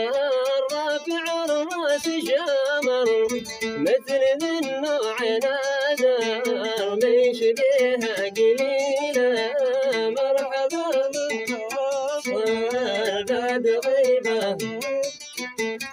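A male voice singing a Hadrami mashqasi song, the melody bending and gliding over plucked-string accompaniment with sharp, rapid attacks.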